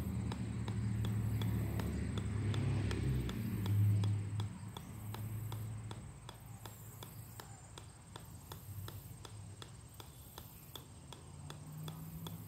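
Golf ball bouncing steadily on the steel head of an 8-pound sledgehammer, a sharp tick about three times a second. A louder low hum sits under the ticks for the first four seconds or so, then fades.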